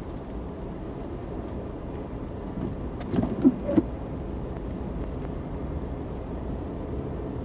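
Steady road and engine noise inside the cabin of a vehicle driving on a snow-covered road, with a few short, louder sounds about three seconds in.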